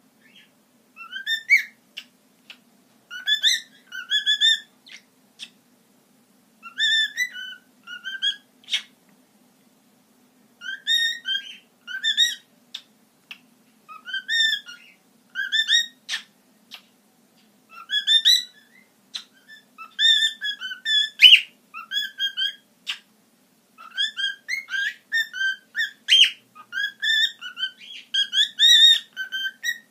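Two-month-old cockatiel whistling in short warbling phrases of rising notes, repeated every second or two with brief pauses, with a few sharp clicks among them.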